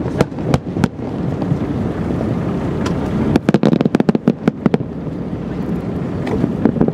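Fireworks shells bursting: a few sharp bangs in the first second, then a quick string of about a dozen bangs and crackles from about three and a half seconds in, over steady background noise.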